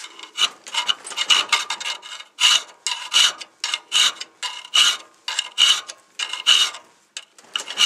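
A 1/4-inch round file rasping back and forth in a groove in a metal knife blank, in repeated strokes a little over one a second, as the groove is cut nearly to depth.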